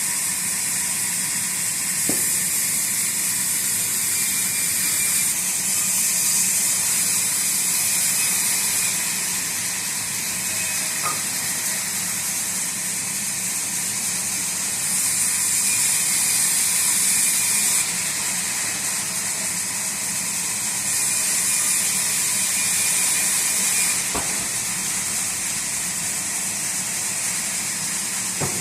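Sawmill cutting wood: a steady high hiss over a low machine hum, the hiss swelling and easing every few seconds.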